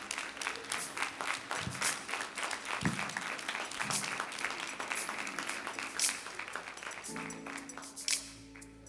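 Congregation applauding, the clapping thinning out near the end as held instrument chords come in.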